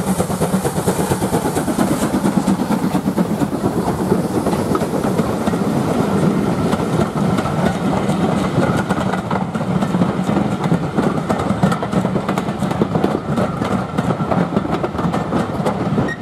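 GWR 56xx-class 0-6-2 tank locomotive no. 5619 passing close by under steam, working with steady exhaust beats, then its train of coaches rolling past with wheels clicking over the rail joints.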